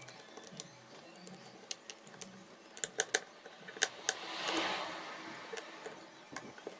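Scattered small clicks and taps of a precision screwdriver and tiny screws being worked on a smartphone's frame, with a brief rustling swell about four and a half seconds in.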